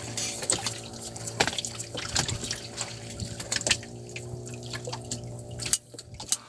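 Small boat engine idling steadily with a low hum, while water slaps and splashes against the hull in short irregular knocks. The engine hum cuts off abruptly near the end.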